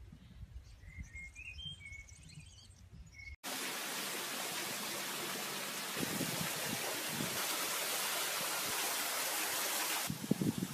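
Faint outdoor ambience with a few short bird chirps, then an abrupt switch to a steady rushing hiss. Near the end, gusts of wind buffet the microphone.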